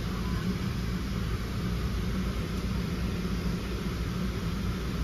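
Steady low drone of aircraft cabin noise inside a Boeing 737-700, unchanging throughout.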